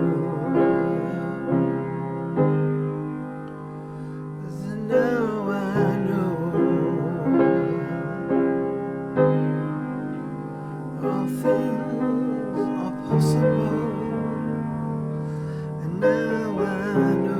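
Music: slow piano chords over a sustained accompaniment, the chords changing every second or two, with a few wavering, vibrato-like melody notes.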